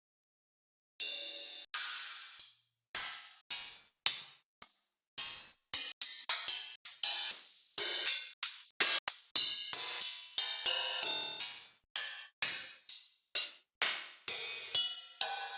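Retro 80s-style synthwave hi-hat and cymbal one-shot samples played one after another, each ringing and decaying briefly. After about a second of silence they start about one every half second, then come faster, around three a second.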